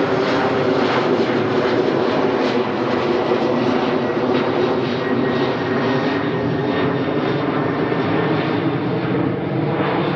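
The twin GE90-115B turbofans of a Boeing 777-300ER running at take-off power during the take-off roll: loud, steady jet noise with several constant humming tones.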